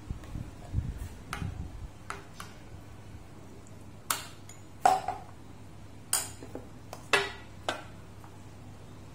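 Metal spoon clinking against a ceramic bowl while stirring a gochujang sauce: a series of sharp clinks, the louder ones coming from about four seconds in, one with a short ring.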